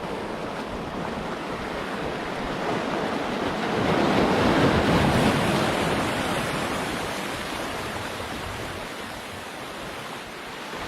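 Surf washing onto the beach: a wave swells to its loudest about four to five seconds in and then slowly dies away.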